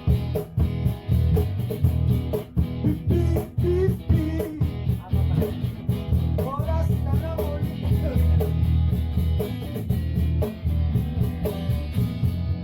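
Acoustic band jamming: strummed guitar over a steady beat, with a voice singing along in the middle.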